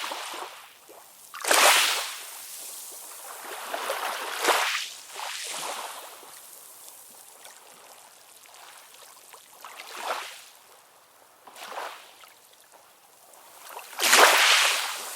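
Ocean waves washing and splashing in irregular surges of hiss, with little low rumble; the loudest surges come about one and a half seconds in and near the end.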